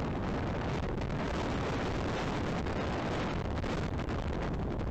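Thunderstorm wind blasting the nest camera's microphone: a steady, dense rush of noise with a heavy low rumble.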